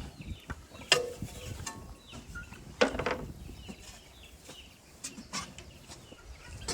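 Two sharp knocks, about one and three seconds in, among lighter clatter and faint chirping.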